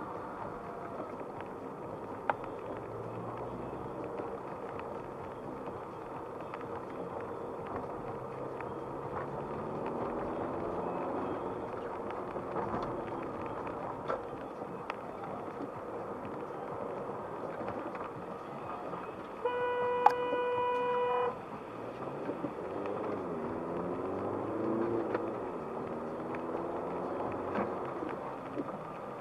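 Car driving on a wet road, heard from inside the cabin: steady tyre and road noise, with the engine rising and falling in pitch a couple of times. About two-thirds of the way in, a car horn sounds once, held for about two seconds.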